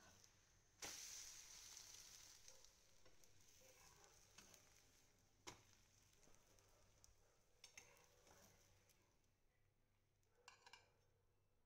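Omelette sizzling quietly in a nonstick frying pan just after it is flipped. The hiss jumps up about a second in and slowly fades, with a few light clicks of a metal spatula against the pan and plate.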